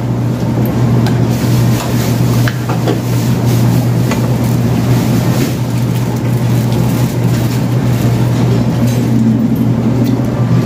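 A steady, loud low hum of background room noise, with a few faint crunches and clicks as crispy fried chicken is bitten and eaten.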